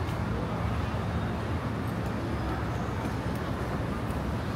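City street ambience: a steady low rumble of traffic under an even wash of noise, with a few faint ticks.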